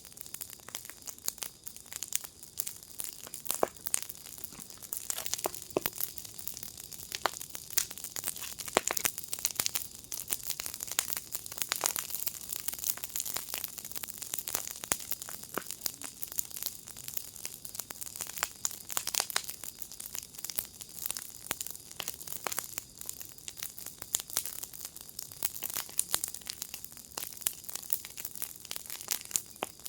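Wood fire in a firepit crackling: a dense, irregular stream of sharp pops and snaps over a steady high hiss.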